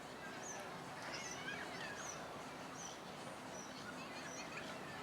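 Small birds chirping outdoors, one giving a short high chirp repeated a little more than once a second while others chirp more softly, over a steady background murmur.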